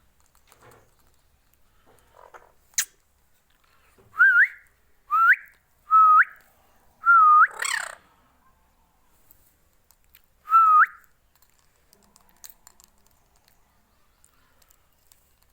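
Ringneck parrot whistling: five short notes in quick succession, each dipping and then sweeping sharply upward, with a harsher scratchy sound after the fifth, then one more whistle a few seconds later. A single sharp click comes before the whistles.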